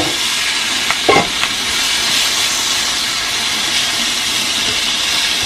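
Diced potatoes and egg frying in a small pan over a gas flame: a steady sizzle while a spoon stirs them.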